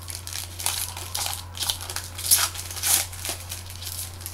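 Trading-card pack wrappers crinkling and tearing as packs are opened and cards handled, in a quick string of short irregular rustles, over a steady low electrical hum.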